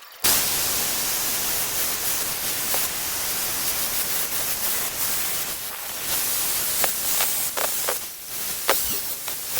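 A loud, steady hiss that starts abruptly, with several sharp clicks or knocks in the last few seconds.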